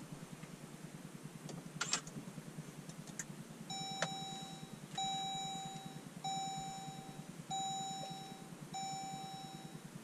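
Jeep Compass dashboard warning chime sounding five times, about one every second and a quarter, each ringing tone fading out, starting about four seconds in. A single click comes about two seconds in, over a steady low cabin hum.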